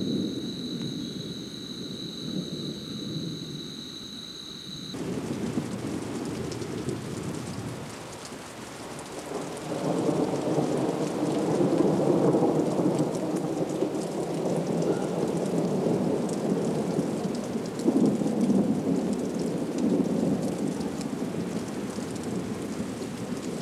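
Steady rain hissing, with long rolls of thunder that swell and fade from about a third of the way in and are loudest near the middle. Before a sudden cut about five seconds in there is only a low rumble with a steady high-pitched whine.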